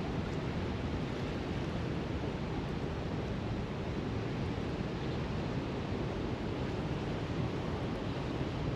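Steady rush of fast, turbulent river water churning below a dam's open spillway gates.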